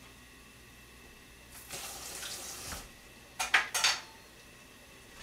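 A kitchen tap runs briefly for about a second, then utensils clatter sharply a few times against a sink or dish.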